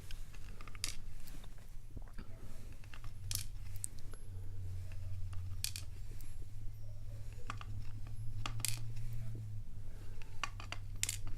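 Small metal padlock parts clicking and clinking as the lock is taken apart by hand: scattered light metallic clicks at irregular intervals, over a faint steady low hum.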